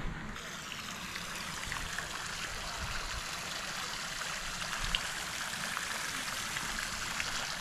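Small garden pond fountain: a steady splashing of the water jet falling back into the pond.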